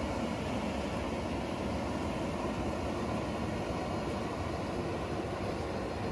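Semi truck's diesel engine running steadily as the rig, hauling a loaded flatbed trailer, rolls slowly over a gravel driveway, with tyre noise on the gravel.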